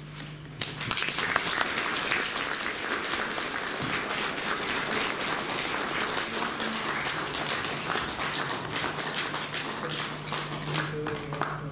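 Audience applauding: many hands clapping together, starting about half a second in and thinning out near the end.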